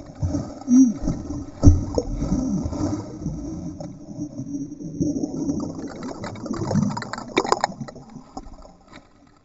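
A swimming dog's paddling legs churning lake water, muffled gurgling and sloshing with bubbles, heard from a waterproof camera housing at the surface. There are irregular splashy hits, the busiest churning about 7 to 8 seconds in, and it quietens near the end.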